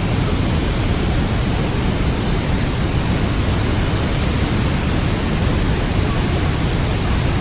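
Steady, loud rushing roar of Niagara Falls' falling water, an even noise without breaks.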